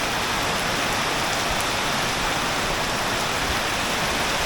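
Heavy tropical downpour: a steady, loud hiss of rain pelting onto the pool and the ground around it.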